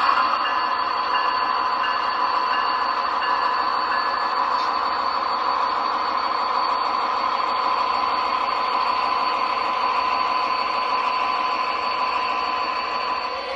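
HO scale BNSF diesel locomotive models rolling past with their sound decoders playing a steady diesel engine, and a locomotive bell ringing about twice a second for the first four seconds.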